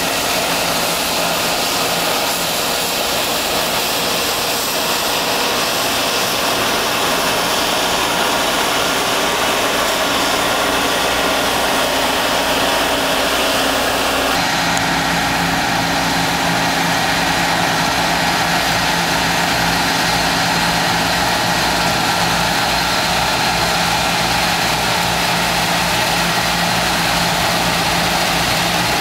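John Deere CTS combine harvester running steadily while cutting and threshing winter barley: a continuous engine and machinery drone with steady hums, its tone changing abruptly about halfway through.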